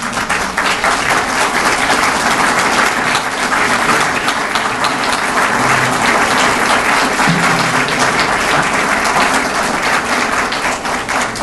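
A roomful of people applauding, dense steady clapping without a break.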